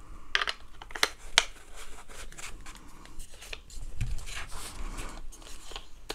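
Handling noise as a microphone desk stand is screwed onto a Maono PD100X microphone: a few sharp clicks in the first second and a half, then rubbing and scraping of the parts, with a dull knock about four seconds in.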